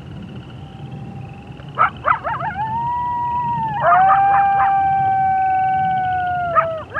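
Several wolves howling together, their long held calls overlapping at different pitches. Short yips break in about two seconds in and again around four seconds, when one long howl starts that holds for about three seconds and drops in pitch at its end.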